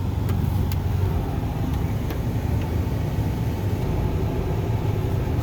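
Truck running, heard from inside the cab as a steady low rumble, with a few faint ticks.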